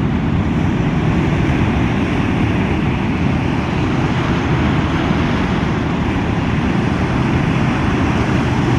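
Steady roar of breaking surf, with wind rumbling on the microphone.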